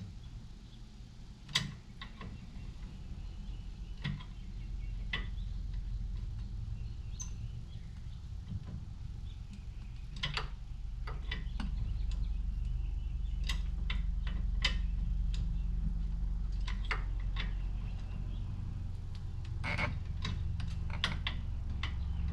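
Scattered sharp clicks and knocks of hand tools on a truck's front brake caliper and its bolts, the sharpest about a second and a half in and several close together near the end, over a steady low hum.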